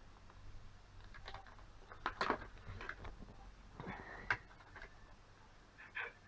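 Light clicks and short rattling knocks of plastic and metal parts being handled as a DVD writer drive is taken apart, over a low steady hum.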